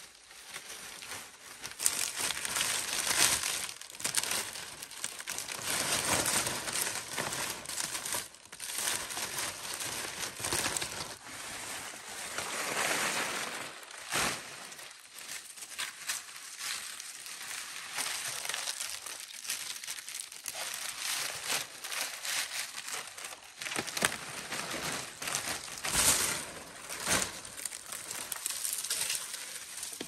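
Steady rustling and crinkling, with irregular louder crackles.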